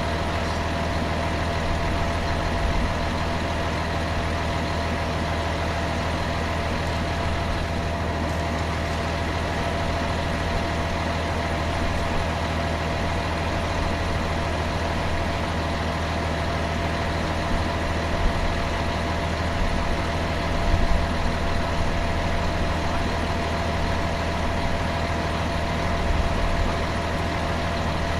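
A steady mechanical hum with a constant whine over it, like an idling engine or running machine, with a few small knocks near the end.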